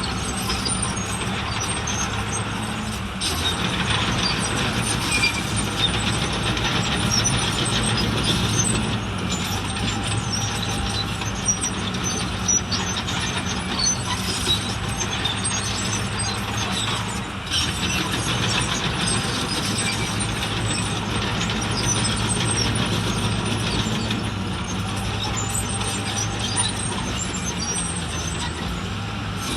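Heavy diesel earthmoving machinery running steadily, with many short, high metallic clinks over the engine; it gets louder about three seconds in.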